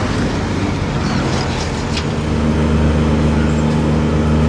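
A van's engine and tyres as it drives past close by; from about halfway a steady low engine hum takes over.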